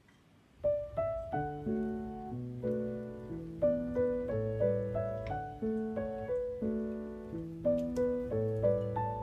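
Background piano music that begins about half a second in: a gentle melody of plucked-sounding, decaying notes over chords.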